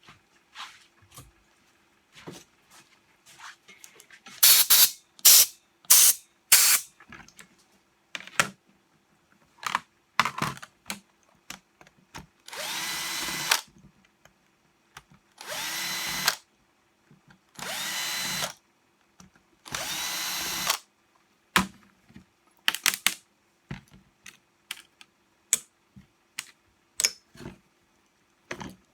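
Cordless drill-driver run in four separate bursts of about a second each, with a few shorter spurts earlier, while the reciprocating saw's gear housing is being opened. Small clicks and knocks of parts and tools being handled fall between the bursts.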